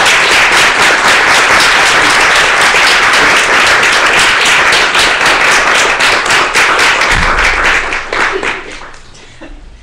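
Audience applauding, a dense steady clatter of many hands clapping that dies away about eight or nine seconds in.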